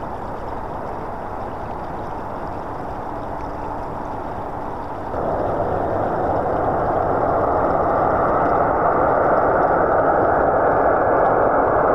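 Jet engines of a large four-engine military transport aircraft on landing approach: a steady rushing engine noise that grows louder as it nears, with a sudden jump in level about five seconds in.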